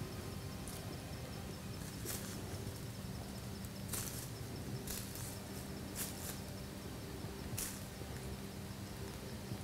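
A handful of brief crackles of dry leaves as a white-tailed doe steps through the leaf litter, spaced a second or two apart, over a steady low hum.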